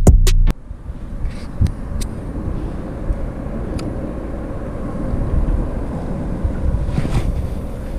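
A music sting with a heavy beat cuts off half a second in, giving way to a steady low outdoor rumble with a few faint clicks.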